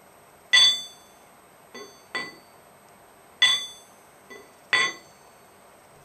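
Steel camshaft struck six times, the second and fifth strikes faint. Each loud strike gives a short, bright metallic ring with several clear high tones. It is sounded to judge its material, a stiffer metal ringing higher and longer.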